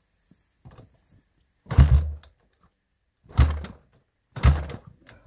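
Three kicks of the kick-starter on a 1985 Honda ATC 200X, about a second and a half apart. Each turns its four-stroke single-cylinder engine over with a short, heavy thud, and it does not catch. The engine is cold and has not run in years.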